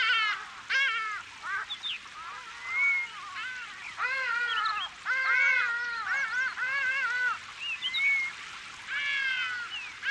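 A flock of birds calling: many short, arching cries that repeat and overlap, over a faint steady hiss.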